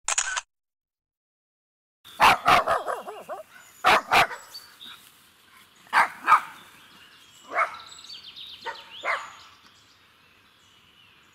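A dog barking, mostly in quick pairs of barks, starting about two seconds in and coming about five times, the later barks weaker.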